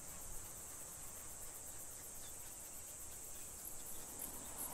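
Insects chirring in a steady, faint high-pitched trill, over a light even hiss of desert ambience.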